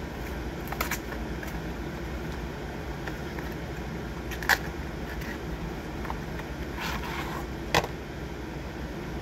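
Cardboard snack-pie box being opened by hand and the pie pulled out: a few sharp crackles and snaps of the packaging, the loudest about four and a half seconds in and near eight seconds, with a brief rustle between them. A steady low hum runs underneath.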